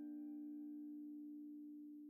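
Background music: one held chord sustained at low level, slowly fading away.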